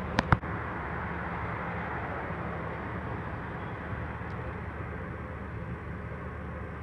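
Steady rumble and low hum of a light-rail train at a station platform, easing off slightly after the first couple of seconds. Two sharp knocks in quick succession just after the start are the loudest thing.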